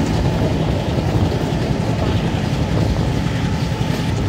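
Passenger train running along the track: a steady low rumble of wheels on rail.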